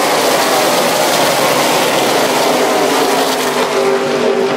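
A pack of NASCAR Cup stock cars racing past at full speed, their V8 engines loud and steady.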